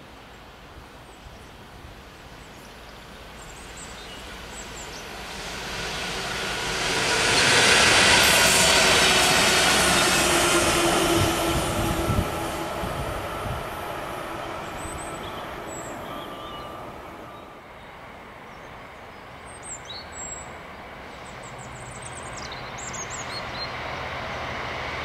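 A train passing on the railway line below. It builds from a distant rumble to its loudest about 8 seconds in, with wheel-on-rail noise, then fades away. Near the end a diesel locomotive's low engine hum builds as another train approaches.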